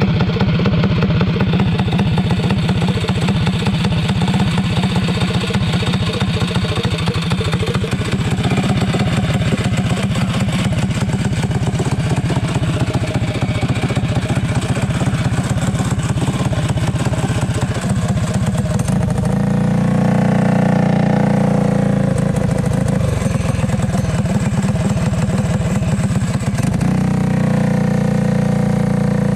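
Heavily modified 212 cc clone single-cylinder go-kart engine (bored block, decked, ported and polished head) running, first at a steady idle, then revving up and down from about two-thirds of the way in as the kart drives off.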